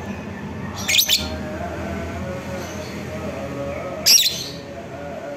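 A Fischer's lovebird gives two short, shrill, high-pitched calls about three seconds apart, the second one with its beak wide open and its wings flapping.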